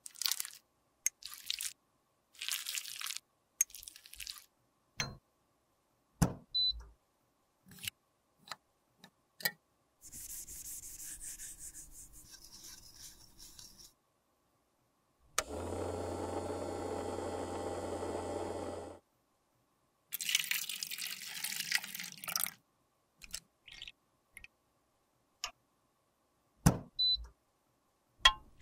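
Short scrapes and taps of a metal spatula digging old lipstick out of its tube, then a small ultrasonic cleaner humming steadily for about three seconds with lipstick tubes in its water tank. Stretches of hiss come before and after the hum.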